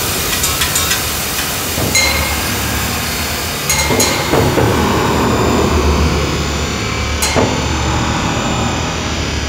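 Harsh metallic scraping of a suspended metal sheet and bowed circular saw blades, run through live electronic processing, over a steady low drone chord. A few sharp metallic hits with a short ring stand out about 2, 4 and 7 seconds in.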